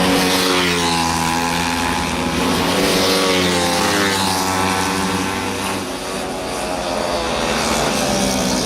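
Several small 70cc racing motorcycle engines running at high revs, their pitch rising and falling as the bikes accelerate and pass. The sound eases off briefly a little past the middle, then builds again.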